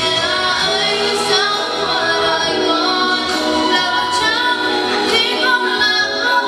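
A young girl singing a slow ballad into a handheld microphone over an instrumental backing track, her held notes bending in pitch.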